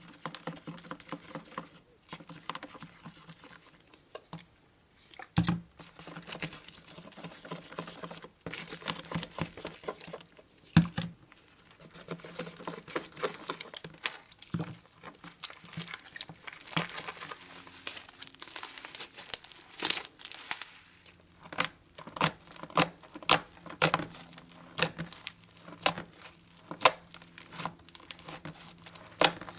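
Homemade glue-and-borax slime being squished, stretched and poked by hand, giving an irregular string of small wet clicks, crackles and pops that come faster in the second half.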